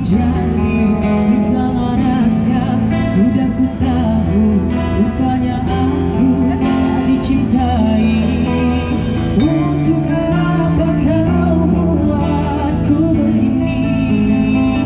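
Amplified live street-busker performance: a man singing a slow melody through a handheld microphone and PA speaker, backed by strummed guitars and bass.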